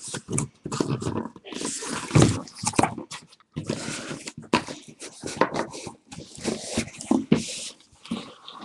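Irregular rustling, crinkling and scraping of packaging being handled: shrink-wrap and cardboard on a sealed case of trading-card boxes, with brief pauses between bursts.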